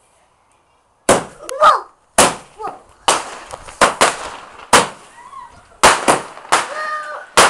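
Consumer fireworks going off: a string of sharp bangs, about ten in six seconds and irregularly spaced, starting about a second in.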